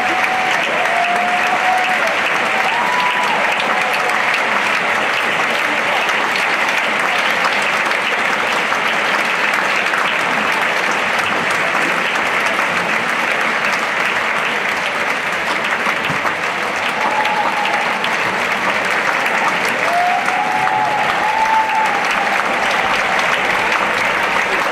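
Large audience applauding steadily and at full strength. A few voices call out over it in the first seconds and again about three quarters of the way through.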